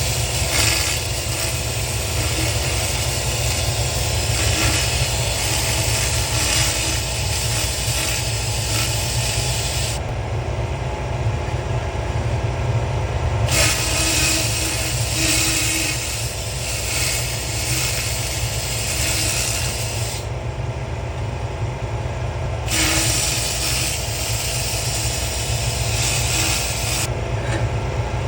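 200W pulsed fiber laser ablating corrosion off brass, a steady hiss that stops three times for a few seconds, about ten seconds in, around twenty seconds and near the end, over a constant low machine hum.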